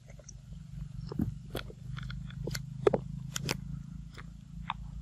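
Macaque biting and chewing ripe papaya close up: a run of short, sharp wet smacks and clicks, thickest in the middle seconds, over a steady low rumble.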